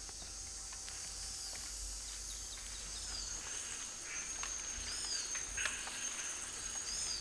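Forest ambience: a steady high-pitched insect drone with a few short, arched bird chirps every second or two.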